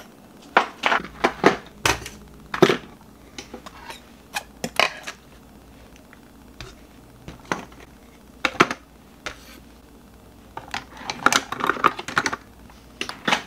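Small objects clicking and knocking together as a hand rummages through a cluttered kitchen drawer, with irregular clatter that is busiest in the first few seconds and again near the end.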